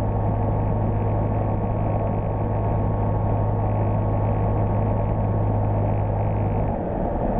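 Sting light sport airplane's engine and propeller droning steadily on final approach to landing, heard from inside the cockpit. The low drone wavers briefly near the end.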